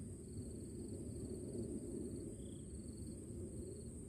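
Insects calling, cricket-like: a steady high-pitched drone with short pulsed trills repeating over it. A steady low rumble runs beneath.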